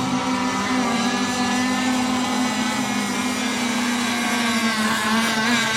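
Several radio-controlled racing boats' engines buzzing steadily at high pitch on the water, their tones wavering a little as the throttles change.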